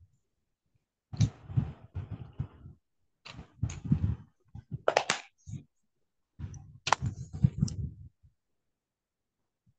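Indistinct speech in three short bursts, with a couple of sharp clicks around the middle.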